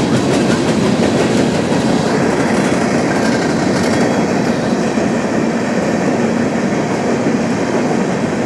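Coal train rolling past: a steady rumble of cars running over the rails.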